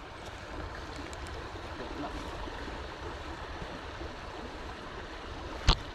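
Steady rush of flowing water, with one sharp click near the end.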